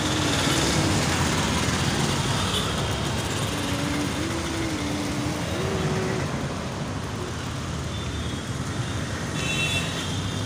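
Street traffic noise: motorbikes and scooters running past with a steady engine rumble. A faint tune of a few held notes sounds in the middle, and short high tones come near the end.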